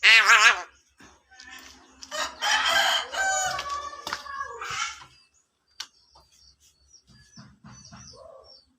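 Javan myna calling: a short wavering call at the start, then a longer run of varied calls with rising whistled notes about halfway through, trailing off into soft chatter.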